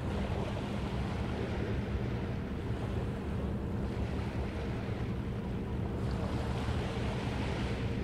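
Ocean surf washing onto a sandy beach, the wash swelling every few seconds, with wind rumbling on the microphone and a low steady hum underneath.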